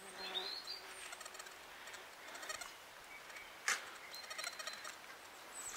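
Faint outdoor ambience: bird calls in the distance, a fly buzzing briefly at the start, and a single sharp click a little past the middle.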